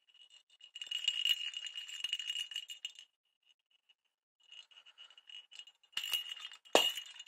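Bell inside a plastic cat ball toy jingling as the ball is shaken, in two spells with a short pause between them. Two sharper knocks come near the end.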